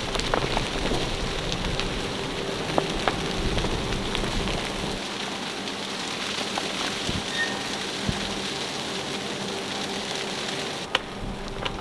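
Precipitation falling steadily on a sailboat's deck and canvas cover: an even hiss with scattered sharp ticks as it strikes.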